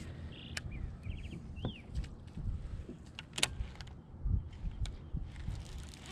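Small birds chirping a few times in the first two seconds, over a low handling rumble and scattered sharp clicks from a baitcasting rod and reel being worked.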